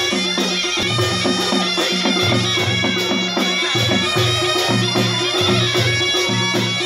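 A panche baja, the traditional Nepali wedding band, playing: wind instruments carry a melody over a steady held drone, with drums beating out a steady, repeating rhythm.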